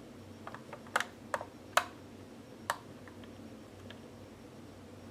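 Light plastic clicks and taps from a plastic scale model kit being handled, scattered over the first few seconds.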